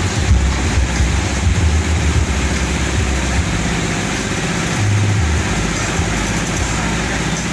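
Loud, bass-heavy music blasting from a large parade sound system, a deep bass line shifting under a dense, noisy wash of sound.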